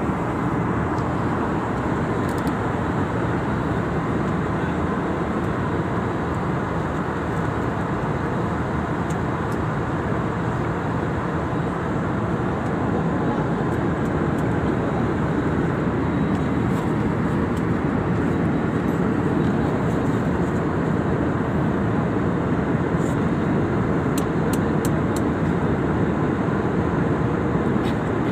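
Steady roar of an airliner in flight heard inside the cabin, a little louder from about halfway through, with a few faint ticks near the end.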